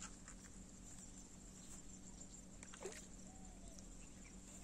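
Faint outdoor ambience: a steady high-pitched insect drone, with one short falling call about three seconds in.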